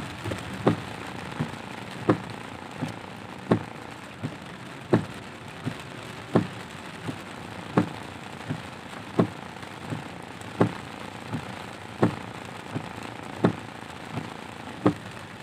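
Windscreen wipers knocking at each end of their sweep, heard from inside the car: a louder knock about every second and a half with a softer one between. Under the knocks is a steady hiss of heavy rain on the car.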